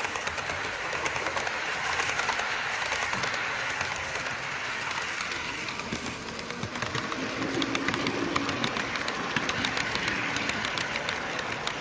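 Model trains running on a layout: a steady hiss of wheels and motors on the track, with many quick clicks of wheels over rail joints that grow busier as a second train comes through in the second half.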